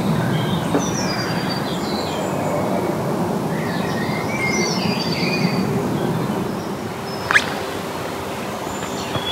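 Songbirds chirping and calling over steady low background noise, with one sharp click about seven seconds in.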